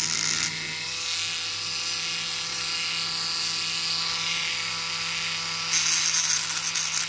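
Handheld rotary tool with a sanding drum running at a steady high whine, grinding off the end of a diecast toy truck's axle to free the wheel. The grinding hiss gets stronger and a little louder about six seconds in.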